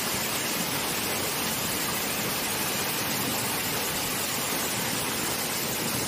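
Waterfall plunging from a height into a rocky valley: a steady, unbroken rush of falling water. The flow is lower than usual after days without rain.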